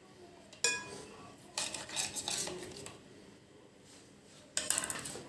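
Kitchen utensils and dishes handled: a sharp metal clink with a short ring, then scraping and a quick rattle of clattering cutlery and dishes.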